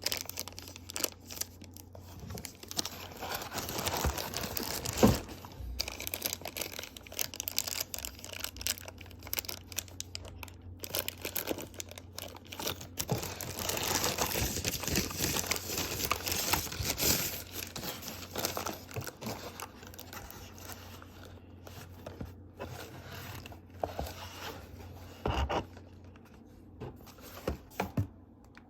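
Keyboard packaging being unwrapped: plastic and paper crinkling, rustling and tearing, irregular and busiest in the middle, with a couple of sharp knocks.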